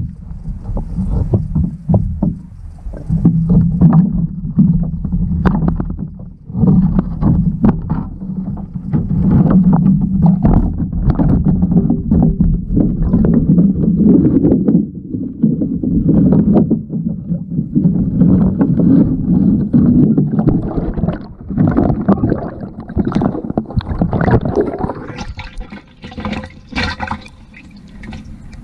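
Water noise picked up by a camera held underwater in a river: a dense low rumble with many small clicks and knocks. It thins out to scattered clicks near the end.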